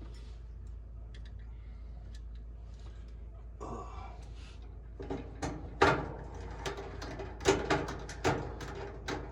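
Hands working on a dryer's heating element assembly: a brief rustle, then from about five seconds in a run of sharp clicks and light knocks of parts and wire connectors being handled, the loudest about six seconds in.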